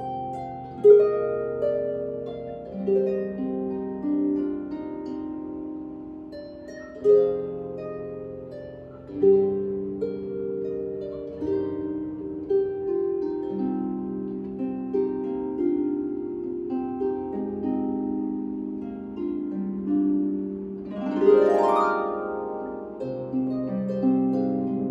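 Solo lever harp playing a melody of plucked notes that ring on over low bass notes, with a quick upward glissando about 21 seconds in.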